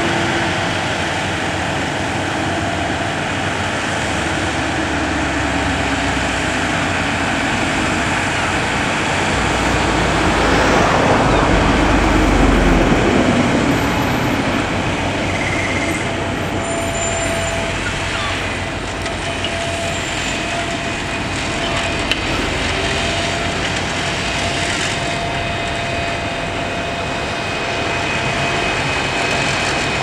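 Engine of a tracked remote-controlled mower running steadily while its Kilworth flail head cuts rough grass, growing louder for a few seconds about a third of the way through.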